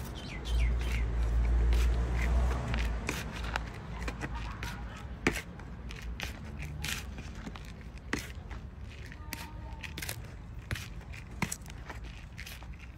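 Hand trowel scooping and scraping loose potting soil in a black plastic pot, giving repeated gritty scrapes and sharp ticks as the blade hits soil and the pot. A heavy rumble of wind on the microphone comes in the first couple of seconds.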